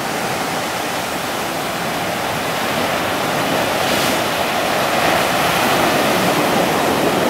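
Sea surf breaking and washing against a rocky shore: a steady rushing hiss that swells slightly about four seconds in.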